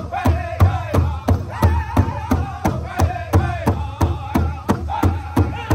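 Powwow drum group singing together in high wavering voices over a large rawhide drum struck in unison with sticks, a steady beat of about three strokes a second.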